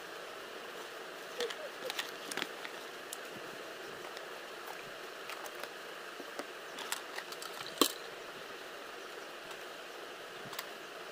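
Scattered light clicks and taps of plastic makeup items being handled, over a steady hiss; the sharpest click comes about eight seconds in.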